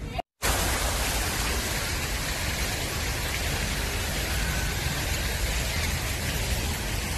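Fountain water splashing: a steady, even rushing hiss that starts abruptly after a brief dropout a fraction of a second in.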